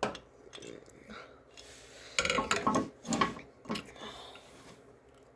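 Metal clinking and scraping, as hand tools or metal parts are handled. A sharp click comes at the start, and a louder burst of clattering follows about two seconds in, lasting over a second.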